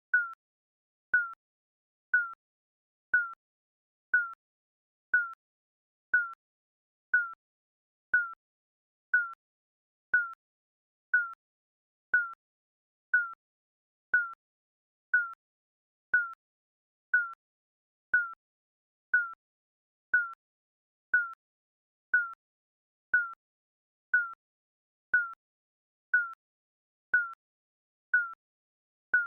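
Digital countdown timer beeping: a short, high electronic beep repeated evenly about once a second.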